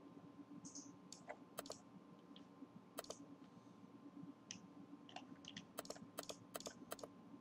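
Faint, scattered clicks of a computer mouse and keyboard as the user works the view, with a cluster of quick clicks about six seconds in, over a faint steady electrical hum.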